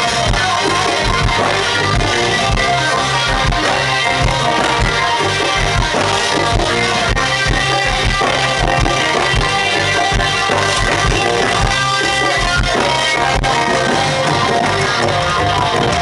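A live band playing: electric guitar leading over bass guitar and a drum kit, with a steady beat.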